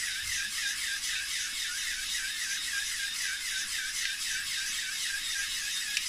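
LEGO NXT/EV3 motors cranking large LEGO pneumatic pumps: a steady mechanical whir with a rhythmic pulsing several times a second, as the pumps push air to the fountain.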